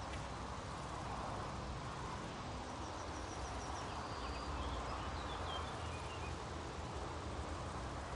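Outdoor nature ambience: a steady soft hiss with a low rumble underneath, and a few faint, high bird chirps in the middle.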